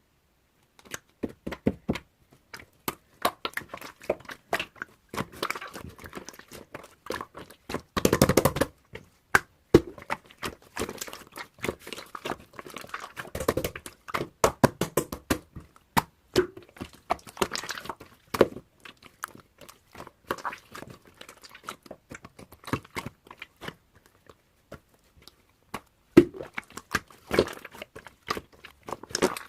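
Irregular close-up clicks, taps and crunching or crinkling noises, coming in uneven clusters, with a louder stretch about eight seconds in.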